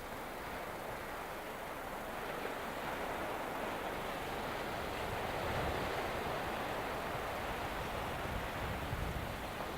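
Ocean surf and wind making a steady rushing noise that grows louder about halfway through, with wind rumbling on the microphone.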